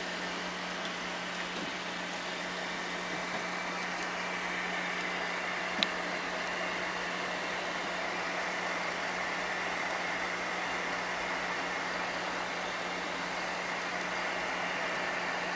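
A steady low hum over an even hiss, like a small running machine, with one sharp click about six seconds in.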